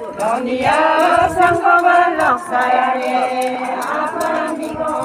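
A group of women singing a chant together in chorus, many voices holding long notes and sliding between them, loudest in the first couple of seconds.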